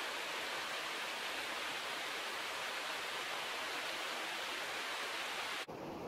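Steady rushing of a fast-flowing river running high and powerful. It cuts off suddenly near the end.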